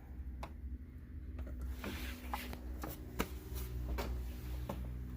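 Hands handling and joining car stereo wires: rustling of the insulated wires with small sharp clicks. It gets busier from about a second and a half in.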